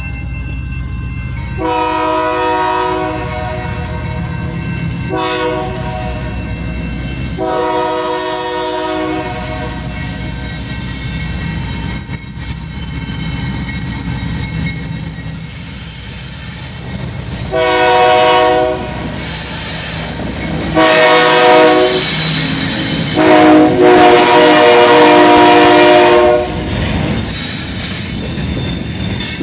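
Union Pacific freight train passing: the lead diesel locomotive's air horn sounds six blasts, the last three loudest and the final one the longest, over the steady rumble of the locomotive engines and rolling wheels. Covered hopper cars are rolling by near the end.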